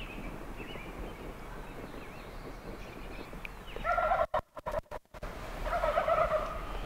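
Wild turkey gobbling twice, a loud rapid rattling gobble about four seconds in and another about two seconds later; the first is chopped by brief dropouts in the recording.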